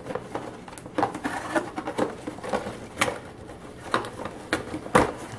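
Cardboard packaging being handled and lifted out of a box: rustling with scattered sharp taps and knocks, the loudest near the end.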